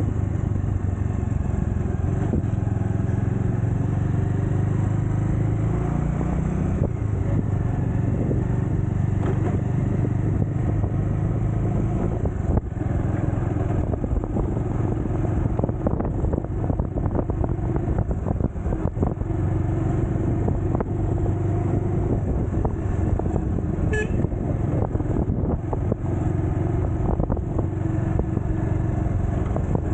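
Motorcycle engine running steadily as the bike rides along, heard from the rider's seat.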